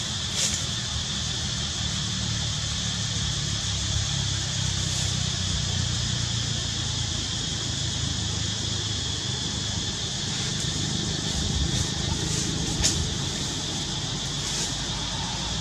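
Steady outdoor ambience: a continuous low rumble under a steady high-pitched hiss, with a few faint clicks or rustles, the sharpest a little before the end.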